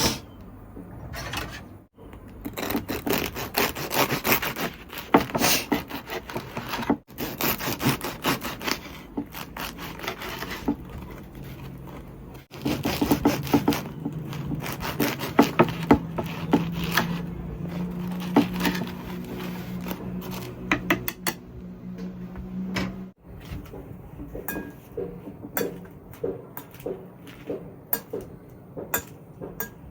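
Rapid, repeated scraping and rubbing strokes in several bursts, with a low steady hum under the middle part.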